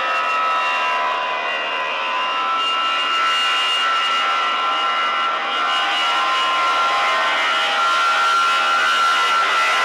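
Airbus A320-212's CFM56-5A turbofan engines running at full takeoff power as the airliner begins its takeoff roll: a loud, steady jet noise with high fan whine tones on top.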